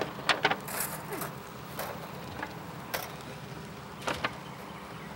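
Metal grill tongs clicking and clinking against the grill grate as meat is lifted off, a scattering of short sharp clicks over several seconds.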